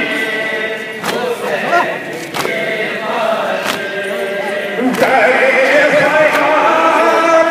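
Men's voices chanting a noha, an Urdu mourning lament, in unison, with a fuller, louder chorus coming in about five seconds in. Sharp beats keep time about every one and a quarter seconds.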